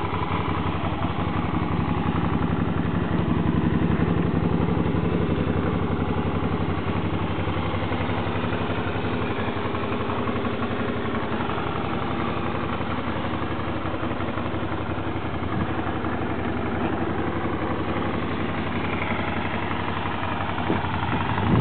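Suzuki DL650 V-Strom's V-twin engine idling steadily, a little louder around four seconds in.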